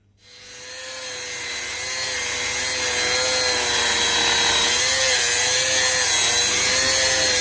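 A power tool running steadily with a constant whine, fading in over the first couple of seconds.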